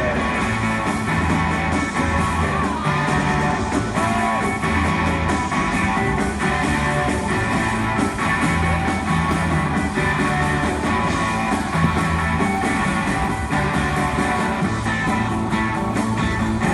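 Rock music with electric guitar and a steady beat, played loud over a PA system.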